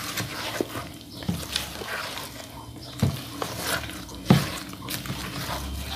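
Thick cake batter with sliced apples being stirred in a plastic bowl: irregular scraping and knocking of the utensil against the bowl, with two louder knocks about three and four seconds in.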